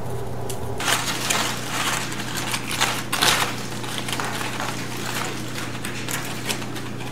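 Crumpled aluminium foil being peeled open by hand, crinkling and crackling in a dense run of sharp little rustles that starts about a second in.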